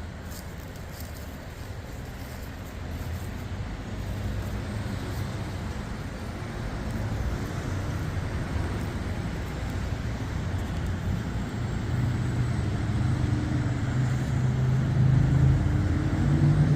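Motor vehicle engine and road noise: a low, steady engine hum that grows gradually louder, as if the vehicle is drawing closer or speeding up.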